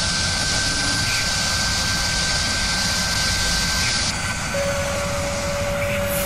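A high-speed CNC router spindle runs and drills: a steady rushing roar with a thin high whine. About four seconds in, the upper hiss falls away and a lower steady tone carries on.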